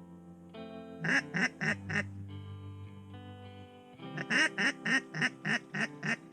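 Duck quacking in two rapid runs, about five quacks a second in and a longer run of about eight near the end, over background guitar music.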